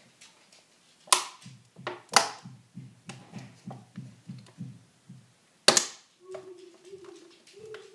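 Thin clear plastic deli-container lid being pried open by hand: sharp plastic snaps about a second in, about two seconds in, and a louder one near six seconds as the lid pops free.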